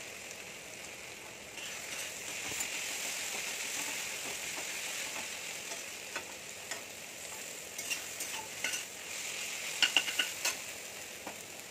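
Sliced onions frying in oil in a kadhai, a steady sizzle, while a metal spatula stirs them and scrapes and taps against the pan now and then, with a quick run of taps near the end. The onions are already fried brown.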